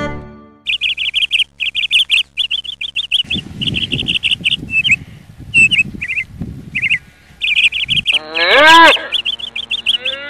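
Birds chirping in rapid, repeated trills. Near the end comes a single louder call about a second long that rises and then falls in pitch.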